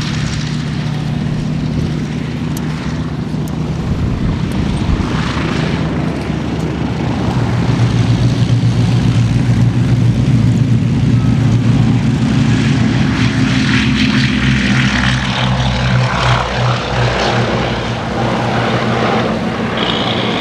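Piston engines of a P-51D Mustang and a Bristol Blenheim taxiing at low power, a steady propeller-aircraft drone. It grows louder through the middle as the aircraft pass and eases off toward the end.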